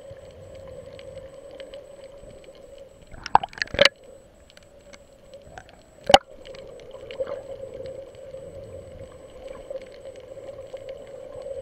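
Underwater sound picked up by a camera submerged over a coral reef: a steady hum with scattered faint clicks, broken by a quick cluster of loud knocks about three and a half seconds in and one sharp knock around six seconds.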